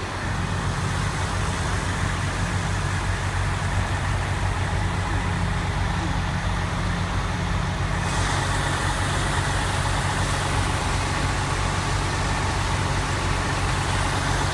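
Fire truck's diesel engine idling, a steady low drone. About eight seconds in, the hiss above it grows suddenly brighter.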